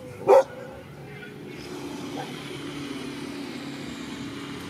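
A dog barks once near the start. From about a second and a half in, a motor vehicle's engine runs with a steady drone.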